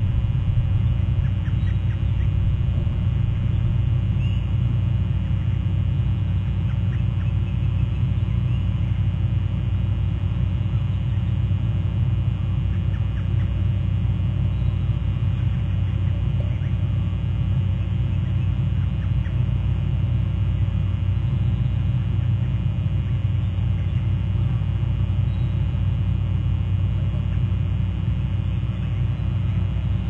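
Steady low rumble on an outdoor microphone, with faint, short high-pitched calls now and then from black oystercatchers.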